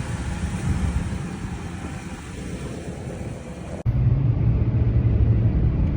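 Vehicle driving on the road: a steady low rumble of engine and road noise. About two thirds of the way through it cuts abruptly to a louder, steady low drone.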